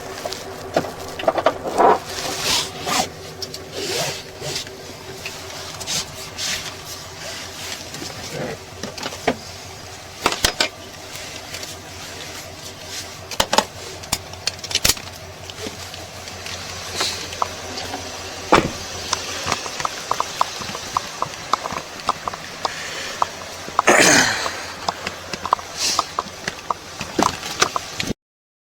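Scattered clicks, knocks and rustling of handling noise over a steady low hum, as in a patrol car with the engine running. About 24 seconds in there is one louder rustling thump.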